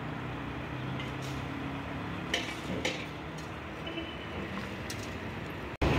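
Street ambience: a steady low engine hum from traffic, with a few faint clicks. It cuts off suddenly just before the end.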